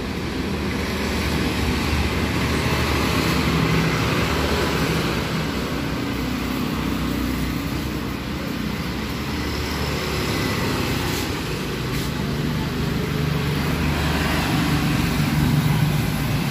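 Steady noise of road traffic passing outside, engines and tyres rumbling, swelling a little around four seconds in and again near the end.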